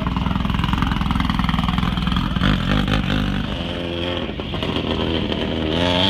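Off-road race buggy's engine running as the buggy drives off on dirt, revving with rising and falling pitch in the second half.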